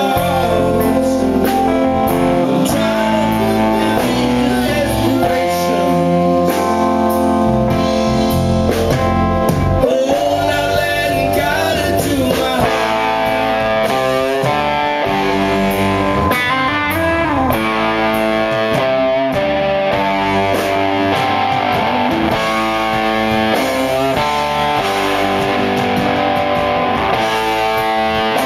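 Live blues-rock band: a Les Paul-style electric guitar plays lead lines with bent notes over drums, with singing at the start.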